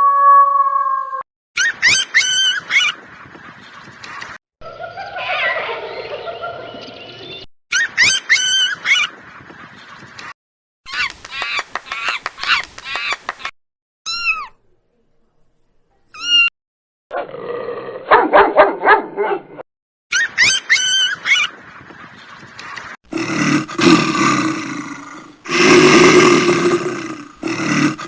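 A string of short animal calls from different animals, each starting and stopping abruptly, with a repeated high chirping call several times and a louder, lower call in the last few seconds.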